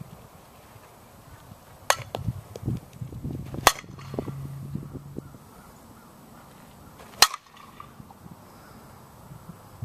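A softball bat cracking against tossed softballs during batting practice: three sharp hits, about two, four and seven seconds in, the last the loudest.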